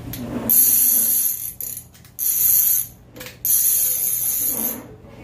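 Avet SX Raptor conventional reel's clicker buzzing in three runs, each about a second long, as the spool is spun by hand.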